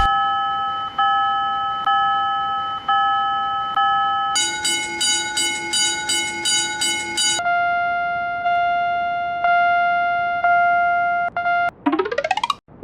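Japanese railroad crossing warning bells (fumikiri 'kan-kan') ringing one after another, each a different electronic pitch and pace: first a ding about once a second, then a higher, faster one at two or three a second, then a lower, slower one. Near the end come a few quick clicks and a burst of rising sweeps.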